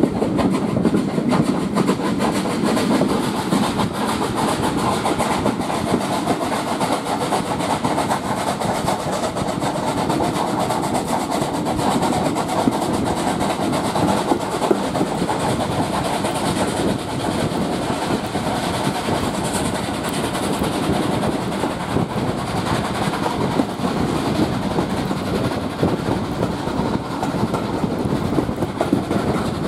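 Steam-hauled heritage passenger train in motion, heard from an open carriage window: steady running noise of the coaches with a rapid patter of small clicks from the wheels on the track.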